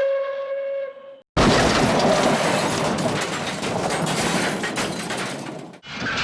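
A steam engine's whistle holds one steady note and cuts off about a second in. After a brief gap comes a loud crash of breaking and shattering, dense with cracks and clatters, that lasts about four and a half seconds and stops suddenly. Another clattering sound starts just before the end.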